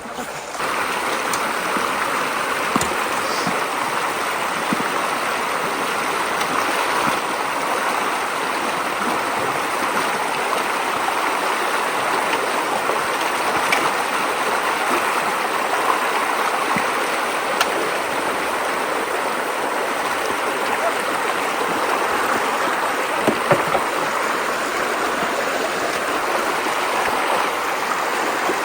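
Creek floodwater running steadily through a road culvert, a continuous rush of flowing water, with a couple of faint knocks late on.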